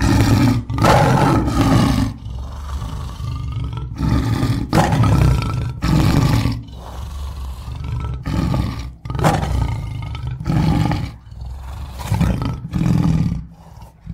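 Tiger growls and roars played by Google Search's 3D tiger model, a string of about a dozen short, rough growling bouts, each under two seconds, with brief pauses between them.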